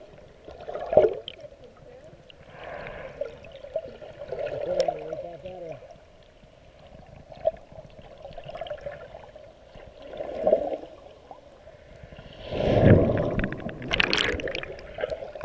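Water sloshing and gurgling, heard muffled through a GoPro's underwater housing, with small knocks and pops and two louder surges near the end.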